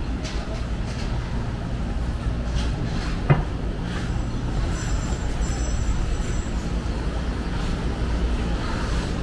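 Steady low rumble of city traffic. There is one short sharp knock a little over three seconds in, and a faint high-pitched whine for about two seconds in the middle.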